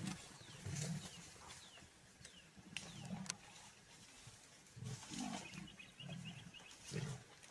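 A lion giving low grunts, about five spaced through a few seconds, with faint high chirps in the background.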